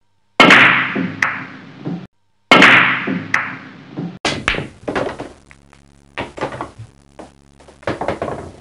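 Two heavy hits about two seconds apart, each ringing down. The first is cut off abruptly. From about four seconds in comes a rapid scatter of sharp knocks and clacks over a low steady hum, as in an edited intro sound effect.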